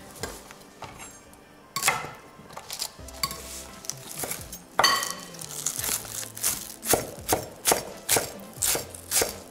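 Chef's knife chopping a bunch of fresh herbs and green onion on a wooden end-grain cutting board. There are a few scattered cuts at first, then from about five seconds in a steady run of knocks, about three a second.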